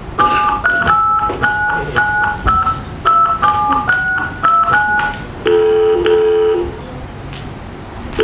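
Telephone number being dialled on a keypad, a quick string of about eleven touch-tone beeps, followed about five and a half seconds in by the ringback tone, a double ring of the phone at the other end.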